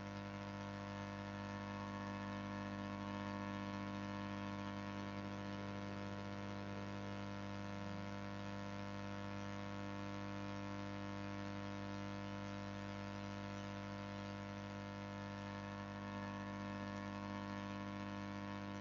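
Steady electrical hum and buzz with a background hiss, unchanging throughout.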